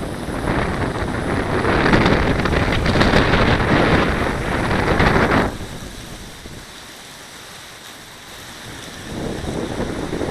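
Strong gusting wind buffeting the microphone: a loud rumbling roar that drops off suddenly about five and a half seconds in, then builds again near the end. The gusts are ones the flyer puts at around 50 mph.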